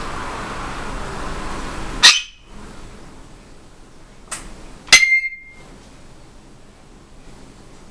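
African grey parrot making its odd little noises: a steady hiss, then two loud, sharp metallic clinks about three seconds apart with a softer click between, the second ringing briefly.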